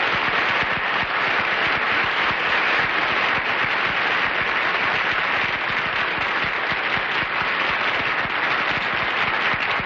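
Studio audience applauding: a steady clatter of many hands clapping at one even level throughout.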